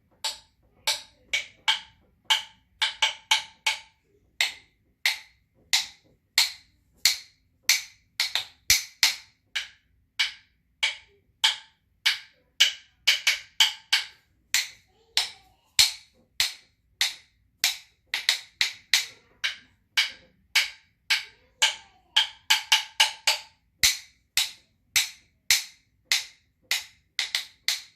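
Wooden rhythm sticks clicked together in short rhythmic patterns, sharp dry clicks in groups with brief pauses between them, a rhythm played and then repeated.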